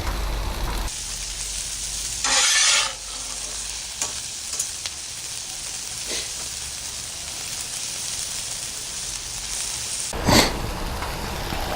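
Sliced carrots, onion and red bell pepper sizzling on a hot oiled Blackstone flat-top griddle, with a steady frying hiss. A metal spatula scrapes and stirs the vegetables across the griddle a little after two seconds and again near the end.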